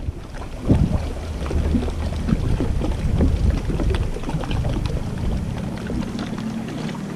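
Wind buffeting the microphone in a gusting low rumble, with small waves lapping against a bass boat's hull in light ticks and splashes. A faint steady low hum comes in near the end.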